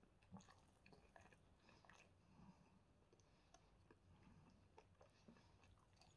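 Faint, scattered crackles and soft sticky clicks of a piece of crumb-coated fried chicken being torn apart by hand.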